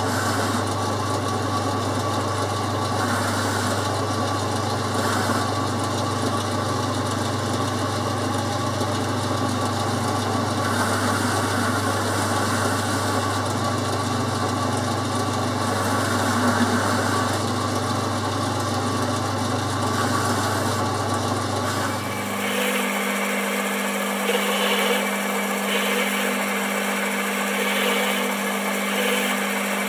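Boxford metal lathe running under power while the ball-turning fixture's carbide tip cuts a dome on a bar of tough steel. A steady low hum with scratchy cutting noise over it; about three-quarters of the way through the hum drops away and a higher steady tone takes over.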